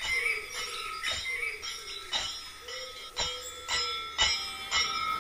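Background music with bell-like struck notes about twice a second over held, gliding tones.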